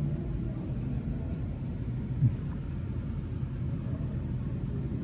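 Steady low background rumble, with one brief knock a little over two seconds in.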